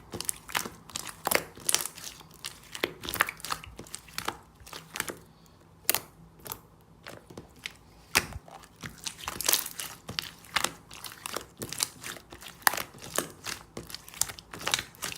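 Close-up, irregular crunching and crinkling, several sharp crackles a second, thinning out for a few seconds in the middle.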